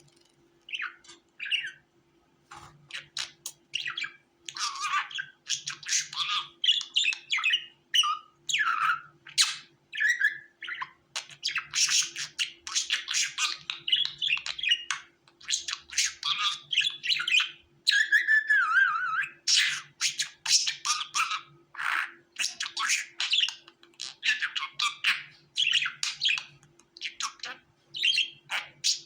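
Budgerigars chattering: a rapid, continuous run of chirps, squawks and warbles that starts about a second in. A faint steady low hum runs underneath.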